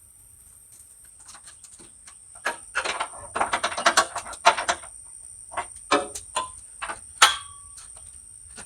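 A run of metal clanks and knocks, clustered in a quick flurry and then spaced out. The last strike rings briefly like struck steel.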